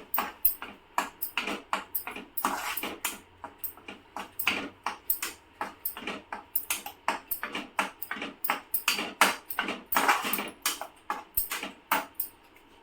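A spatula scraping and stirring ginger paste around a kadhai as it cooks dry, without oil: a steady run of short scrapes, roughly two or three a second, uneven in strength.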